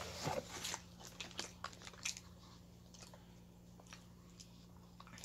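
Plastic tub and wrapper being handled, crinkling and clicking, busiest in the first two seconds and then a few scattered ticks.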